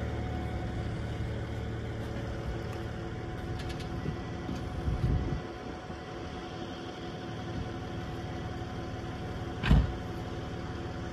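Tow truck's diesel engine idling steadily, with a car door shut with a single loud thump near the end.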